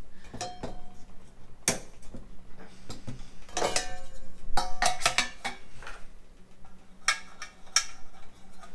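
Metal camping cookware clanking and scraping as it is nested together: a frying pan set upside down onto a pot and the lid fitted on top. Several sharp metallic knocks, some ringing briefly, bunched together about four to five seconds in and again near the end.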